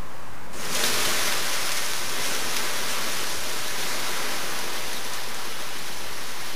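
Water dumped from a container onto a burning model stagecoach: a sudden rush of water about half a second in, then a steady hiss as the flames are doused.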